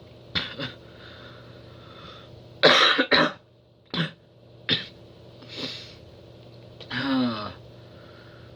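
A woman coughing in a series of short, sharp bursts, the loudest a double cough about three seconds in, with a voiced sound falling in pitch near the end.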